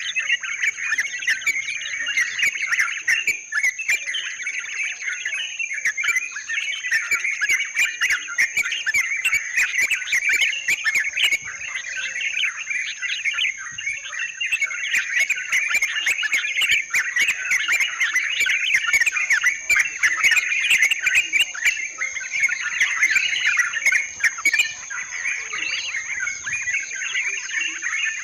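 Yellow-vented bulbuls (trucukan) chattering continuously in a dense run of bubbly calls, over a steady high-pitched whine.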